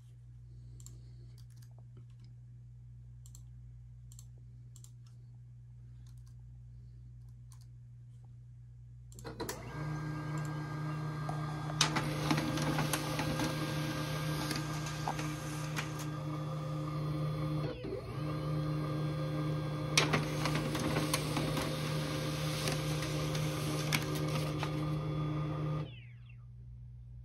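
HP LaserJet 1022 laser printer printing a test page: after about nine seconds of a low steady hum, the paper feed and print mechanism start and run loudly and steadily for about sixteen seconds, with a few sharp clicks and a brief break about halfway, then stop.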